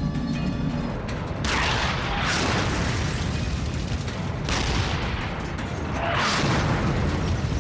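Tank cannon fire: three heavy blasts, about a second and a half, four and a half and six seconds in, each a sudden crack with a long hissing tail, over a steady low rumble.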